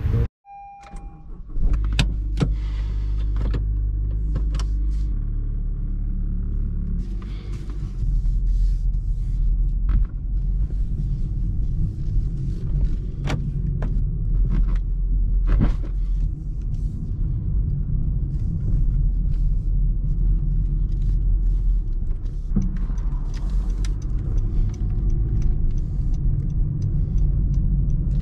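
Car driving, heard from inside the cabin: a steady low engine and road rumble with scattered clicks and knocks. A short beep sounds about half a second in.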